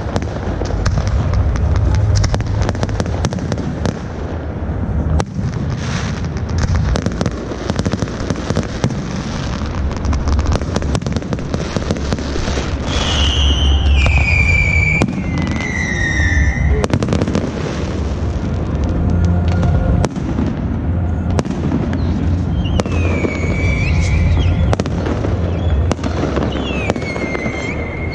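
Aerial fireworks going off in a continuous barrage of deep booms and sharp crackling. Several descending whistles sound around the middle and twice more near the end.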